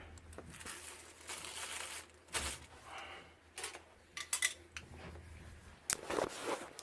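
Crinkling and rustling handling noise with several sharp clicks, over a low hum that stops about five seconds in.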